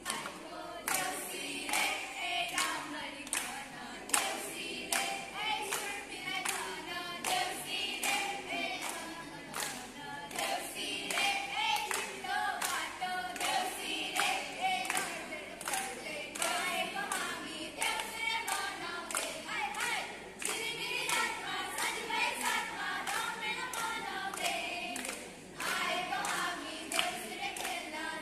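A group of girls singing together unaccompanied while clapping their hands in a steady, even beat.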